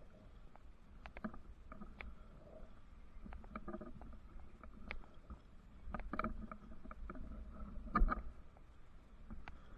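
Climbing gear and boots knocking and clinking against a radio tower during the climb, in irregular strokes with the loudest knock about eight seconds in, over a steady low rumble.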